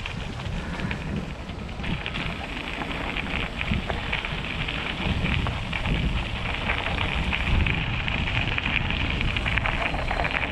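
Wind rumbling over the microphone of a BMX bike riding along a path, with a steady crackling hiss from the tyres rolling over the paving.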